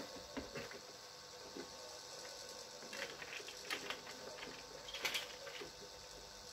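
Light clicks and taps of plastic baby-walker parts being handled and fitted together, busier about three to five seconds in.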